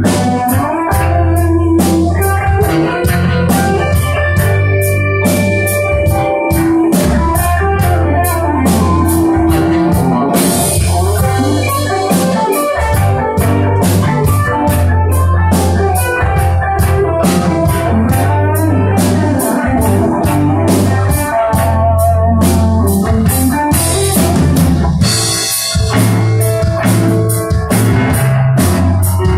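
A rock band playing live and loud: drum kit, electric guitars and bass guitar, with drum hits in a steady beat over sustained bass notes.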